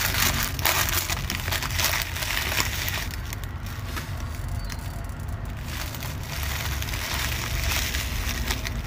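Thin clear plastic bag crinkling and crackling as hands handle and pull at it, heaviest in the first few seconds and again near the end, over a low steady rumble.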